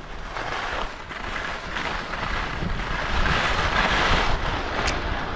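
Skis carving over snow in a string of turns, a rushing scrape that swells and fades about once a second, with wind buffeting the microphone.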